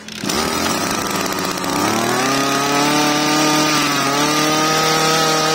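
Makita MEM302 31cc brush cutter engine firing up and running. It rises in speed about two seconds in, then holds a steady fast idle.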